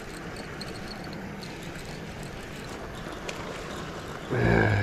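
Baitcasting reel being cranked to bring in a hooked bass, over a steady outdoor hiss with a few faint ticks. Near the end comes a brief voiced sound, about half a second long.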